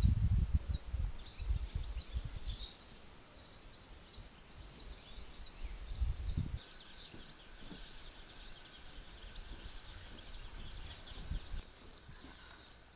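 Outdoor country ambience with faint birds chirping now and then, and low rumbling on the microphone in the first couple of seconds and again about six seconds in.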